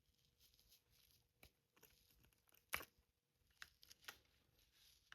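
Near silence: faint room tone broken by a few soft clicks, the loudest a little under three seconds in.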